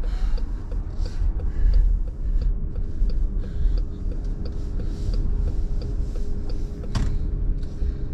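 A car's turn-signal indicator ticking steadily, about three ticks a second, inside the cabin over low road rumble while the car turns. The tick doesn't sound satisfying at all.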